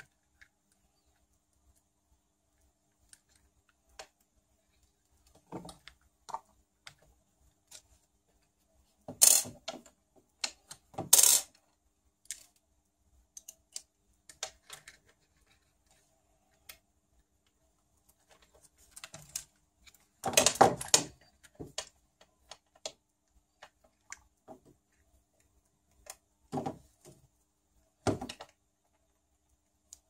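Small metal RC car parts and tools clicking and clinking as they are handled and fitted, in scattered sharp clicks with a few louder clatters about nine, eleven and twenty seconds in.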